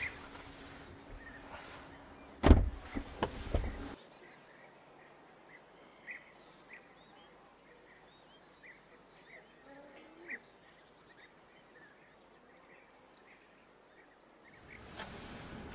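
Rear door of a 2009 BMW 750Li shutting with a single heavy thump, followed by a few lighter knocks. Then a quiet stretch with faint scattered chirps and a steady thin high tone, until a louder background noise rises near the end.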